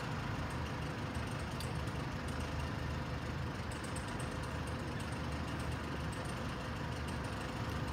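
Steady low engine rumble, like a vehicle idling, with a faint steady hum above it.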